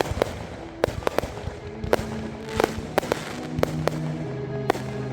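Fireworks going off in sharp bangs and pops at irregular intervals, a few each second. Music with held notes plays underneath and becomes more prominent toward the end as the bangs thin out.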